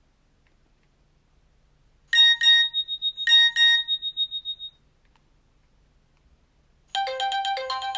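Nokia 6230i mobile phone playing a short alert tone: two quick double beeps about a second apart, starting about two seconds in and ringing out briefly. Near the end the phone's next tone begins, a quick run of melody notes.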